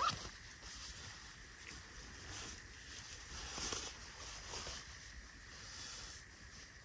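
Faint, irregular rustling and handling noises: a few soft scrapes over a low steady rumble.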